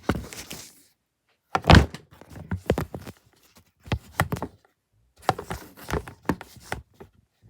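Knocks and plastic clicks of Lego models being shifted around on a crowded display shelf, in several short clusters, the loudest thump just under two seconds in.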